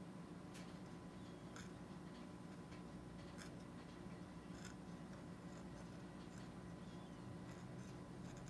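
Faint, scattered light clicks and scrapes, roughly one a second, of a metal Gracey curette's blade working strokes against the plastic teeth of a dental typodont, over a steady low hum.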